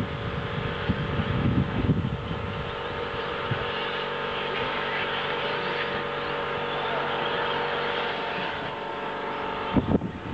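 A pack of 1/10-scale 2WD electric RC buggies racing on a dirt track: several motors whining steadily together with tyre noise on the loose surface. A low rumble underneath fades out a few seconds in.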